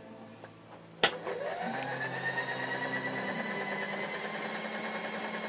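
Vertical milling machine switched on with a click about a second in. Its spindle motor whines up in pitch as it comes up to speed, then runs steadily.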